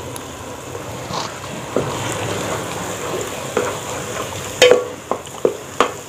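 Semolina halwa sizzling in a steel pot while a wooden spoon stirs it. From about two-thirds of the way in, the spoon knocks sharply against the pot's side, about twice a second.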